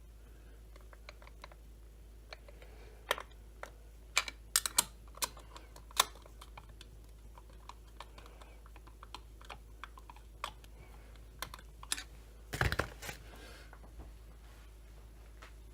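Scattered small clicks and clinks of hand tools and sockets being handled and sorted through, as in a search for a 1/4-inch socket, with a louder clatter and thump about three-quarters of the way through.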